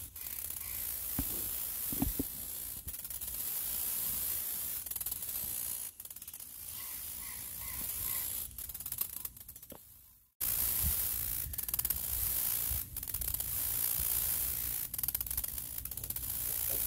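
High-pitched, rapidly pulsing insect buzz in the background, with a low rumble of wind or handling on the microphone.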